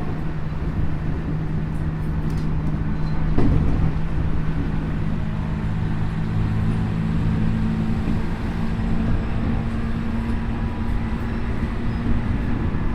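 Tokyu 5050 series commuter train running, heard from inside the car at its end: a steady rumble of wheels on rail with a low hum, and one short knock about three and a half seconds in.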